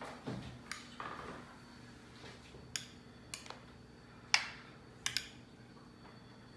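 A metal utensil clinking and tapping against a dish as beaten egg is spooned over a lasagna layer: a scattered string of short, sharp clinks, the loudest about four seconds in.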